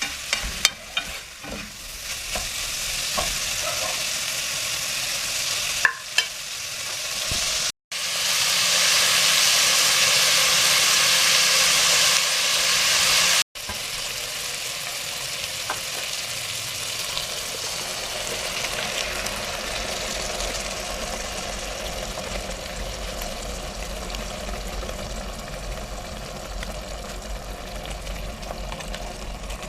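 Food sizzling in a frying pan as it is stirred, with several sharp taps of the utensil against the pan in the first seconds. The sizzle cuts off abruptly twice, about 8 and 13 seconds in, with a louder stretch in between.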